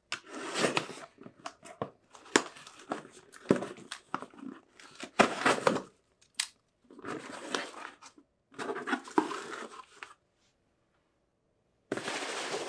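A pocket knife slitting packing tape on a cardboard shipping box: bursts of tape tearing and cardboard rustling, with a few sharp clicks and taps. After a short quiet gap near the end, the box flaps are pulled open with more rustling.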